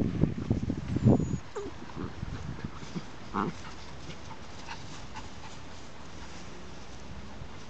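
Two puppies, a Border Collie and a brown pup, play-fighting: rough growling and scuffling for the first second and a half, then a short whimper about three and a half seconds in, followed by only faint small sounds.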